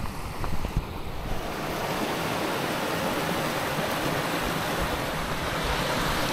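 Rocky upland stream rushing over stones and small falls with a steady rush of water. Wind buffets the microphone for about the first second and a half.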